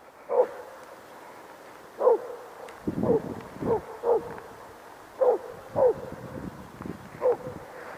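Estonian hound baying: about eight separate barks at uneven spacing, each dropping in pitch, the hound giving tongue while it works a hare's scent trail.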